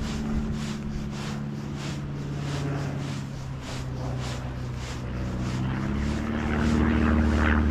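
Engine of a low-flying plane passing overhead: a steady drone whose pitch dips and then rises again, growing louder near the end.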